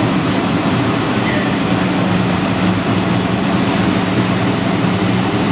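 Fire engine's diesel engine running with a steady, even drone and a low hum.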